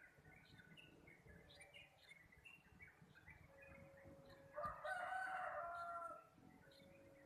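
A rooster crows once, a little past halfway, the loudest sound here, over a background of small birds chirping.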